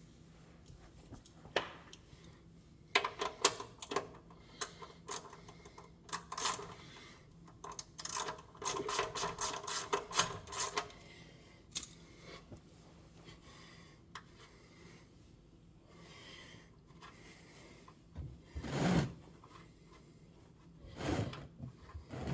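Hand tools clicking and clattering against metal under a truck at the start of an oil change, with a run of fast clicks near the middle. Two short pitched creaks or groans come near the end.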